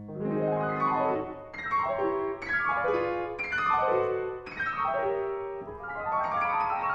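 Concert grand piano played solo in a classical piece: a chain of quick descending runs, each about a second long, sweeping from the high register down to the middle. Near the end the runs give way to a denser, sustained texture.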